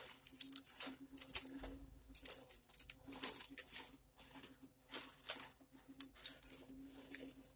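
Aluminium foil crinkling and crackling in short irregular bursts as it is unwrapped by hand, over a faint steady hum.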